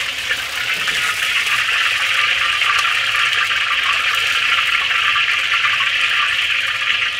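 Battered chicken pieces deep-frying in a wok of hot oil at around 350°F during the second fry, with a steady, even sizzle. The cook takes this sizzle as the sign that moisture inside is heating up and the pieces are done and crisp.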